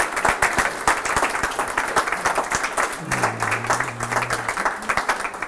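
Small audience applauding, many hands clapping quickly and evenly.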